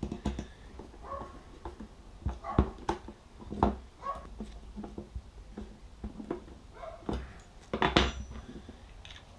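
Metal hand tools and small screws and washers clicking and knocking on a wooden workbench as a camera bracket is screwed together with a screwdriver. A louder clatter about eight seconds in, as tools are set down and picked up.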